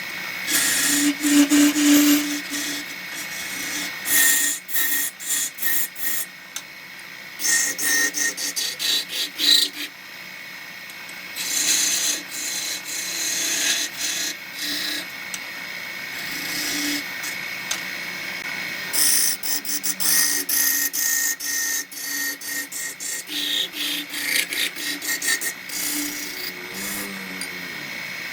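Wood lathe running with a steady high whine while a turning tool or abrasive is worked against the spinning wood, in bursts of scraping noise, many of them quick short strokes.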